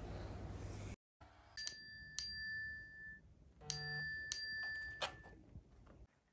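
Bright bell-like chime notes, a glockenspiel-style sound-effect sting: two ringing strikes, then a quick run of notes and further strikes, each left to ring out. Before that, steady room tone with a low hum cuts off about a second in.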